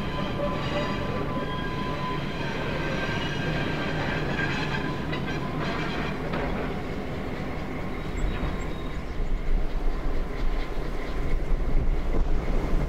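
Small diesel switcher locomotive running and rolling slowly over track switches, with steady high squealing tones from its wheels in the first few seconds. From about eight seconds in, a gusty low rumble of wind on the microphone takes over.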